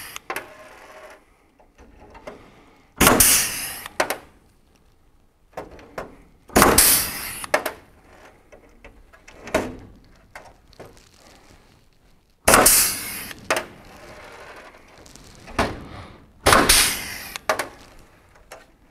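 Pneumatic blind-rivet gun pulling aluminium pulled rivets through a wing rib and angle bracket. Each pull gives a short, sharp hiss-and-snap about a second long, four times a few seconds apart, with lighter clicks between as the gun is set on the next rivet.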